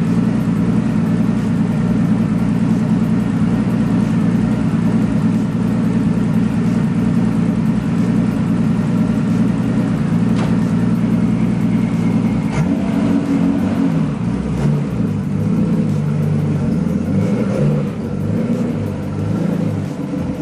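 Nissan Skyline R32's RB26 twin-turbo straight-six idling steadily, warmed up. About twelve seconds in, the engine note starts to rise and fall under light throttle as the car is driven off, and it grows quieter near the end as the car moves away.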